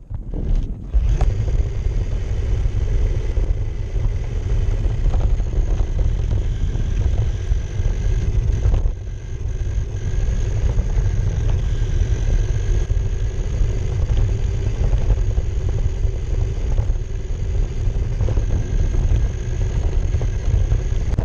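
Steady rumble of a radio-controlled car's tyres and chassis running over asphalt, heard through a camera mounted on the car itself. A faint thin high whine from the drive sits over it. The rumble starts up about a second in as the car sets off.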